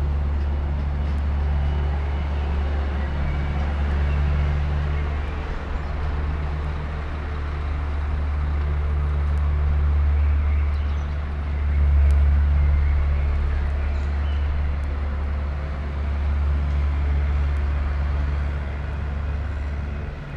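Street traffic ambience dominated by a steady low engine rumble from passing and idling vehicles, swelling a little about twelve seconds in.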